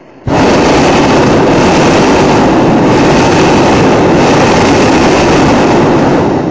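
Hot-air balloon's propane burner firing in one long, loud burn of about six seconds. It comes on suddenly and falls away at the end.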